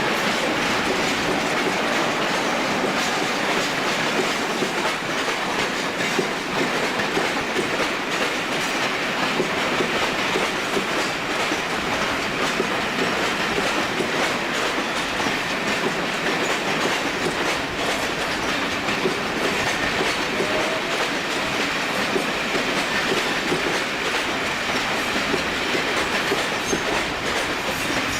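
A British Rail train moving through the station: a steady noisy rumble of rolling stock that carries on unbroken.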